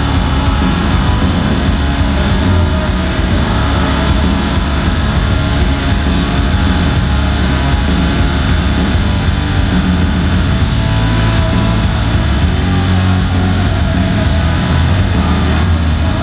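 A live hard rock band plays at full volume: distorted electric guitar, bass and drums, with a male lead singer at the microphone, heard from the crowd.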